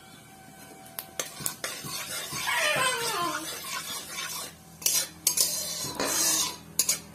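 A spatula stirring and scraping in an aluminium kadhai while cumin seeds and dried red chillies sizzle in hot mustard oil. A scrape slides down in pitch about three seconds in, and the spatula knocks sharply against the pan several times near the end.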